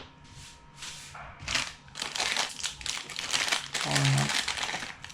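Plastic packaging crinkling in irregular bursts as it is handled and opened, with a short vocal sound about four seconds in.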